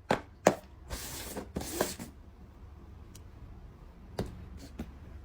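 A few sharp knocks and two short rustling noises, with more knocks about four seconds in.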